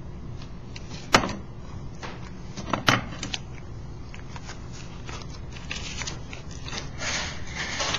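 Two sharp knocks, about a second and about three seconds in, then a stretch of rubbing and scraping.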